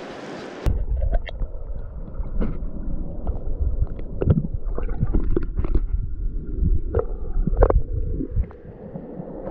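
River water heard through a camera submerged in the current: a muffled low rumble with scattered knocks and gurgles. It starts abruptly under a second in as the camera goes under and eases near the end.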